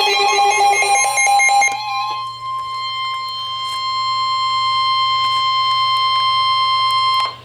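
Emergency Alert System attention signal for a Special Marine Warning: a steady single-pitch electronic alarm tone, the 1050 Hz NOAA Weather Radio warning alarm, holding for about six seconds and cutting off suddenly near the end. It is preceded in the first second or two by a pulsing, multi-pitched electronic tone.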